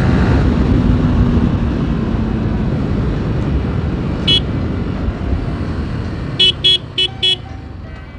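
Motorcycle riding in traffic, a steady engine and road rumble that eases off toward the end. A short horn beep sounds about four seconds in, then four quick beeps near the end.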